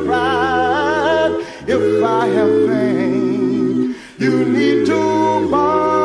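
A cappella vocal group singing wordless harmony: several voices hold chords under a higher lead line with vibrato. The sound breaks off briefly twice, about a second and a half in and about four seconds in.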